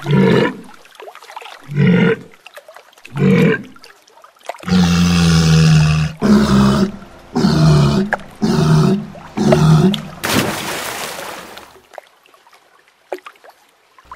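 Walrus calling: three short low calls about a second and a half apart, then a long low call and a quick run of shorter calls, ending in a breathy hiss about ten seconds in.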